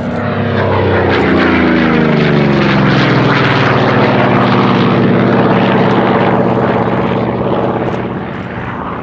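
Goodyear FG-1D Corsair's Pratt & Whitney R-2800 Double Wasp radial engine and propeller making a loud flypast. The engine note falls in pitch over the first few seconds as the aircraft passes, then holds steady and eases off near the end.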